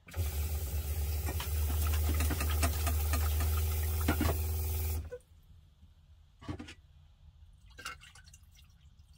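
Kitchen sink faucet running into a metal saucepan, with a low hum under the water, shut off suddenly about five seconds in; then two light knocks from the pot.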